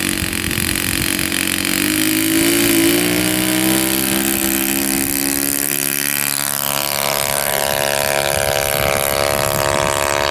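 YS-120NC four-stroke glow engine of a large radio-controlled model plane, throttled up for the takeoff: its pitch rises over the first few seconds, then holds at high power as the plane takes off and flies.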